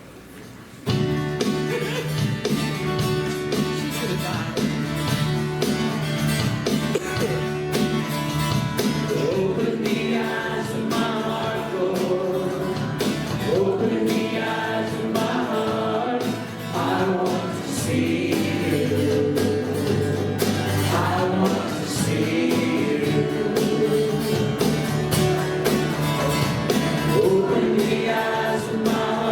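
A worship band starts a song about a second in: gospel-style music with steady instrumental backing and singing.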